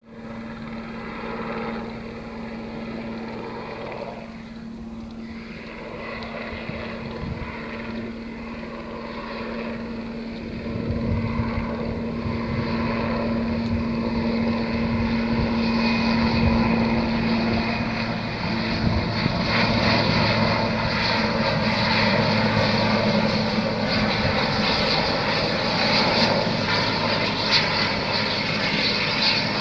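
RAF helicopter flying past, its rotor and engines making a steady hum that grows louder through the first half and stays loud as it comes closest.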